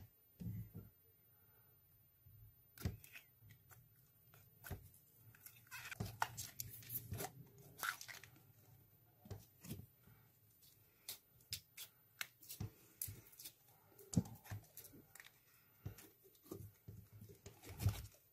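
Slime being handled and squeezed out of a small plastic bottle: irregular crackling, popping and squelching of slime and plastic, busiest a few seconds in.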